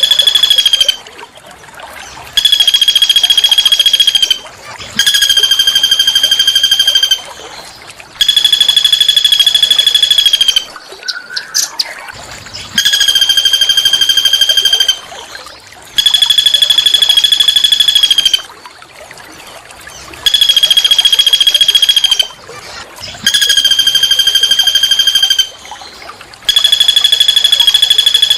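A small songbird's harsh, buzzy call, repeated in phrases about two seconds long with short pauses between them, nine times. Each phrase holds one steady pitch and has a fast pulsing texture.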